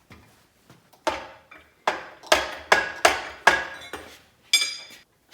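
About seven sharp hammer blows on metal, irregularly spaced, from about a second in. The last one rings with clear tones. They are struck while trying to free the pistons of a seized VW Type 1 1600 engine.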